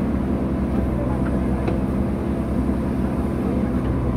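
JCB 3DX backhoe loader's diesel engine running steadily under load, driving the hydraulics as the backhoe arm digs and swings.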